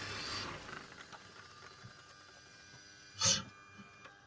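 Car engine with a vacuum leak idling, then stopping about a second in. After it stops, faint steady whining tones remain, and a short, loud burst of noise comes about three seconds in.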